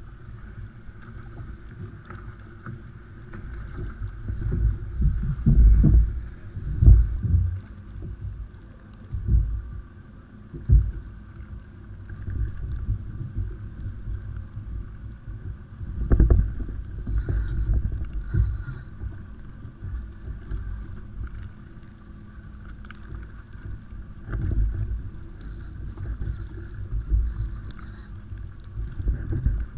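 Low rumbling and irregular thumping of wind and water buffeting a GoPro microphone on an ocean kayak, with no clear mechanical or voice sound.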